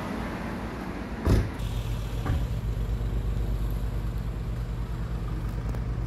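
Steady low hum of an idling engine, with a thump about a second in and a fainter one a second later.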